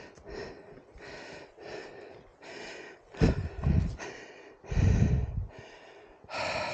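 A person breathing hard from exertion, a run of heavy, noisy breaths a little over one a second, with a few loud low thumps in the middle.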